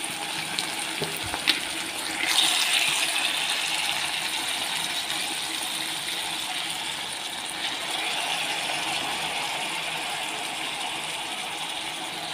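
Capsicum and onion sizzling in hot oil in a frying pan. About two seconds in the sizzle gets louder as soy sauce is poured in, then slowly eases, with a couple of light clicks just before.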